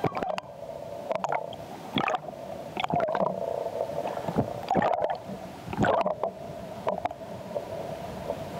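Humpback whale sounds recorded underwater: a steady hum with short, sharp pulses about once a second.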